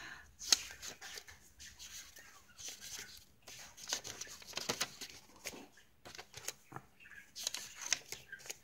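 Paper rustling and crackling as the pages, tags and cards of a handmade junk journal are turned and handled: a run of irregular soft crackles and flutters.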